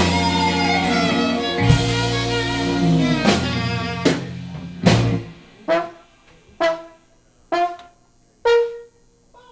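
Live klezmer-punk band with brass, saxophone and drums playing a held chord over bass. It then breaks into a run of six sharp ensemble stabs about a second apart, each dying away into near quiet.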